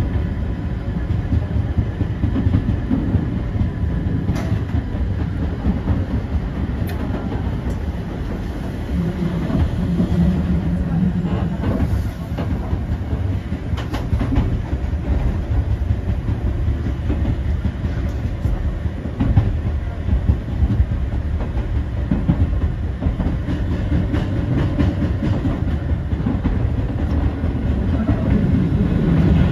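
Eizan Electric Railway train running, heard from inside the front of the car: a steady low rumble from the wheels and running gear, with a few sharp clicks along the way.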